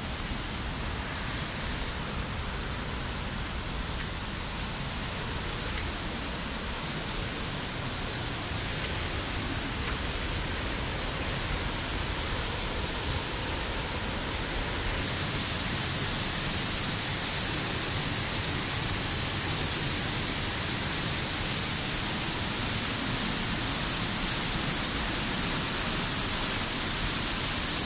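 Steady rushing of a tall waterfall pouring off a cliff, growing slowly louder, with a sudden jump to a brighter hiss about halfway through.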